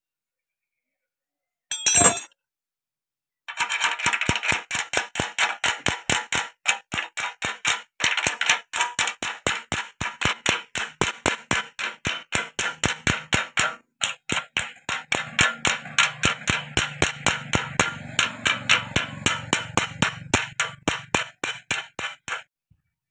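Small hammer tapping rapidly on the metal hose clamps that hold a sickle blade to an aluminium pole: light metallic taps, about four a second, after a single louder knock about two seconds in.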